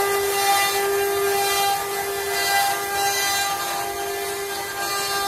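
Multi-spindle CNC wood router's spindle motors whining at a steady high pitch while the cutters carve a wooden relief panel, over a hiss of cutting.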